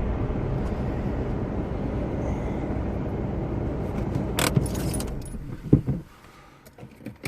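Car engine running steadily, then a jingle and clicks of keys at the ignition and the engine switched off about six seconds in, leaving a few small clicks.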